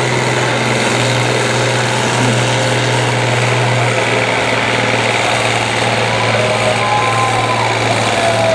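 International Harvester 1066 Turbo's six-cylinder turbocharged diesel engine running flat out under heavy load as the tractor drags a weight-transfer pulling sled. The engine note stays loud and steady.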